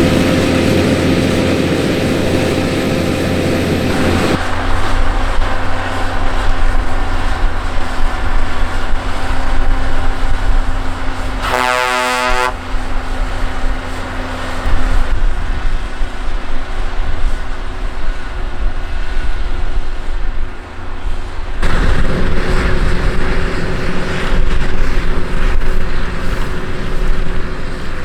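Case IH Puma 240 CVX tractor's six-cylinder diesel running steadily under load while pulling a six-furrow plough, its sound changing abruptly twice. About midway, a pitched tone sounds for about a second.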